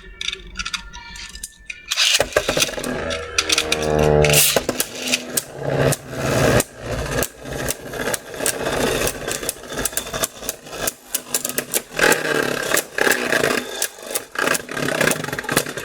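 Beyblade Burst spinning tops are launched about two seconds in, with a falling whir just after. They then spin and clash in a plastic stadium: a dense rattle of hard plastic collisions that stops near the end.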